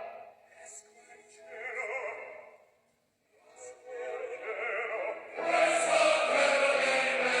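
Operatic singing with a wide vibrato over music. It breaks off briefly about three seconds in, then comes back fuller and louder, with steady low notes underneath, from about five and a half seconds.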